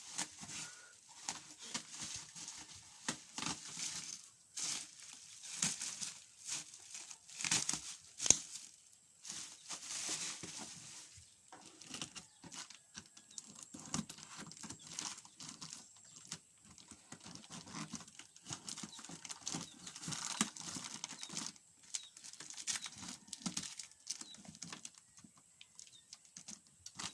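Packaging being handled and opened: irregular crinkling and tearing, with scattered clicks and knocks.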